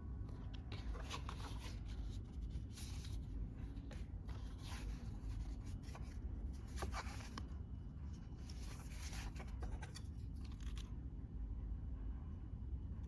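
A phone case and its packaging being handled: irregular rustling and scraping, quieter for the last couple of seconds.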